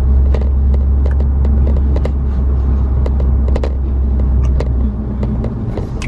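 Low, steady rumble of a car driving, heard from inside the cabin. It eases off about five seconds in, and faint scattered ticks sit above it.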